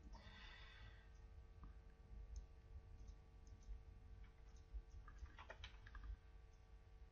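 Faint, scattered clicks of a computer mouse and keyboard, with a denser cluster about five and a half seconds in, over a steady low hum.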